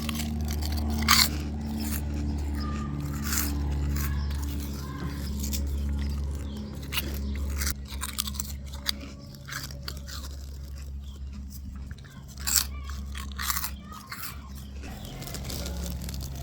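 Crunching and chewing of Quavers crisps, irregular sharp crunches in clusters, over a steady low hum.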